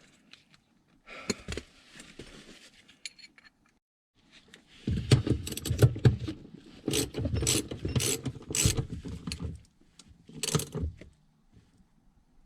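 Hand tools and metal parts clicking and clattering as they are handled, a few scattered clicks at first, then a dense run of clatter from about five to ten seconds in and a short burst just after.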